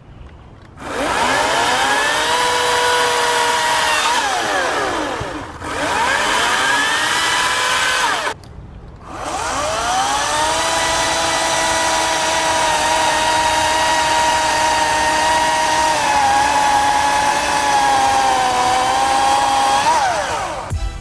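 ECHO 58V battery-powered chainsaw with a 16-inch bar cutting boxelder logs, run three times: two short bursts and then a long cut of about ten seconds. Each run is a motor whine that rises in pitch as it spins up and falls away when released, and in the long cut the pitch sags twice as the chain bogs under load.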